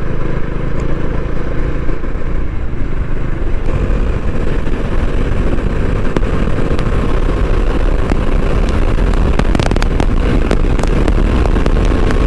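Bajaj Dominar 400's single-cylinder engine running steadily at speed under the rider. About four seconds in the sound changes, and the engine note then climbs slowly as the bike gathers speed.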